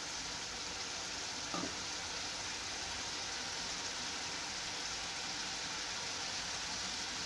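Spice masala, fried onion with garlic and ginger paste, ground spices and a little added water, sizzling and bubbling steadily in a non-stick frying pan while it cooks down. One faint short sound stands out about a second and a half in.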